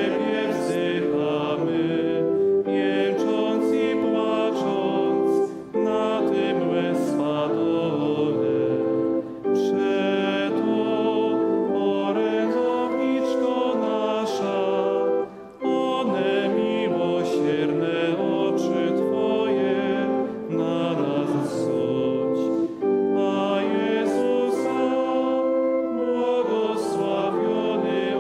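Voices singing a slow sacred hymn in long held phrases, with short breaks for breath every few seconds.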